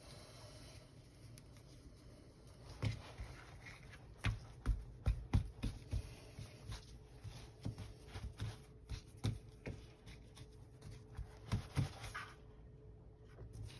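Irregular soft thumps and light knocks of things being handled and set down on a kitchen counter, coming in uneven clusters, with a faint steady hum behind them in the second half.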